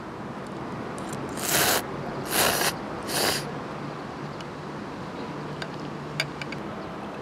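A person slurping tantanmen noodles: three quick, hissy slurps in a row starting about a second and a half in. A single light click near the end.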